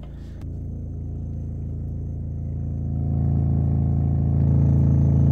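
EBAC Neptuno 6.5-inch prototype subwoofer running free air on a 27 Hz test tone: a steady low hum with a buzz of overtones. It grows steadily louder as the amplifier gain is turned up.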